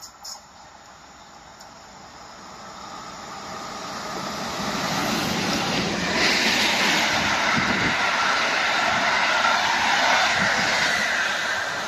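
Electric train passing at speed on the line: the rush of wheels on rails builds over several seconds, stays loud with a few low knocks, and starts to fade near the end.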